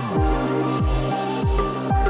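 Background electronic music with a steady beat: about three deep kick drums a second over held synth tones.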